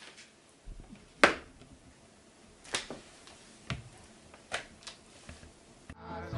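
About five sharp clicks and taps, spread irregularly over a few seconds against faint room tone; the loudest comes about a second in.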